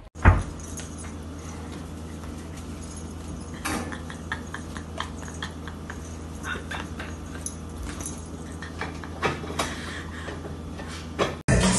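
A dog and a cat tussling on carpet: scattered soft scuffles, paw taps and a few light knocks over a steady low hum, with a sharp thump just after the start.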